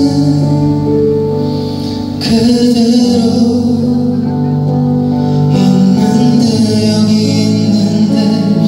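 Male singer singing a Korean-language song live into a microphone, backed by keyboard and band through a concert sound system; the music swells fuller about two seconds in.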